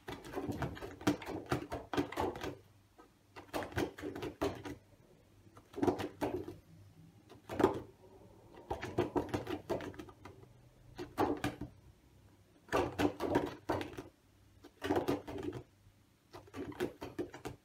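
A double-sided card flashcard being spun and flipped over and over between the hands, giving about nine short flurries of clicking and rustling card.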